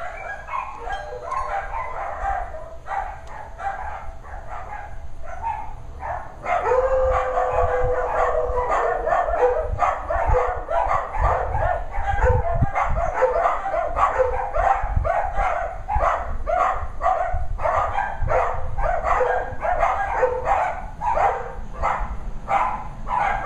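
Eight dogs barking without a break, set off by the doorbell, their barks overlapping several a second; the barking gets louder about six and a half seconds in.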